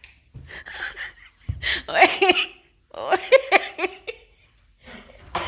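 A person laughing in quick repeated bursts, in two loud spells about a second apart with softer laughter before them.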